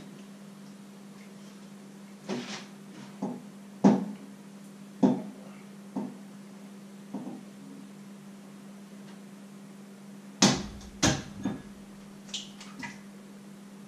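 Kitchen clatter: about ten separate knocks and clinks of pots, pans and utensils being handled at the stove. The loudest is a heavier pair of knocks about ten seconds in. A steady low hum runs underneath.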